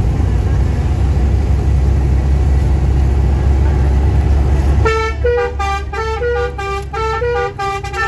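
Low, steady vehicle engine and road rumble, then about five seconds in a telolet multi-tone musical horn starts playing a melody of short notes that jump between pitches.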